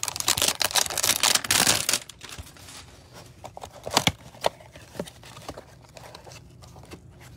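A trading-card hanger box's packaging being torn open: a dense crackling tear for about two seconds, then a few light clicks and taps as the box is opened and the card stack handled.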